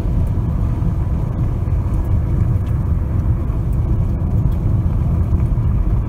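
Steady low rumble of a car heard from inside its cabin: engine and road noise.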